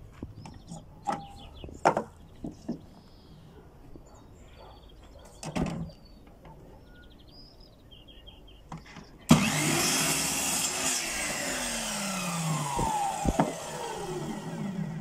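Electric miter saw switched on about nine seconds in, its motor and blade running loudly, then the pitch falls steadily as the blade spins down. Before that, a few light knocks and clatters of wooden strips being handled.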